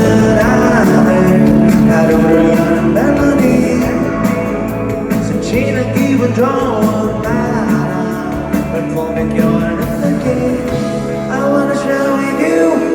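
Live rock band playing through a concert PA, with electric guitars, bass and drums under a bending melodic lead line. The deepest bass drops away about eleven seconds in.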